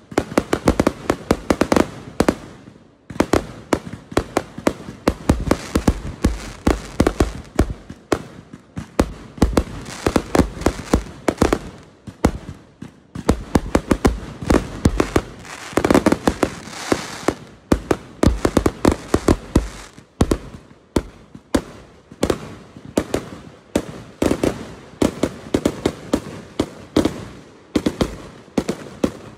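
Aerial fireworks display: a rapid, continuous string of bangs and crackles from shells bursting overhead, with short lulls about three and twenty seconds in.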